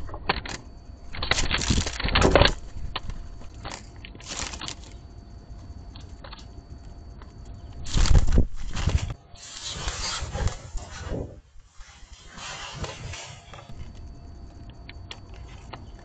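Wings of a blue jay and mourning doves flapping and scuffling at close range over a seed tray: a loud flurry about two seconds in, another around eight seconds, and smaller ones after, then it settles.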